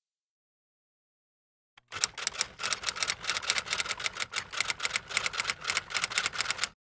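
Typewriter keys clacking in a quick, steady run of sharp strikes that starts about two seconds in and stops just before the end, in time with on-screen text being typed out.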